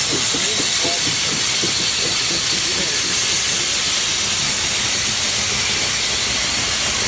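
Loaded coal hopper cars of a long freight train rolling past: a steady hiss and rumble of steel wheels on the rails.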